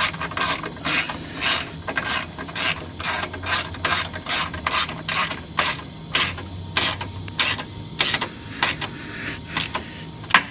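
Ratchet wrench clicking in repeated short strokes, about two a second, as bolts are tightened down; the strokes stop near the end.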